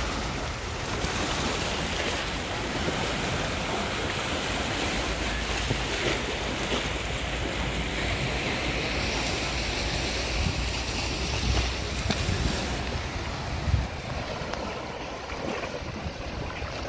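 Small sea waves washing in and breaking over rocks at the water's edge, a steady rush of surf, with wind buffeting the microphone. A brief louder splash or knock comes about three-quarters of the way through.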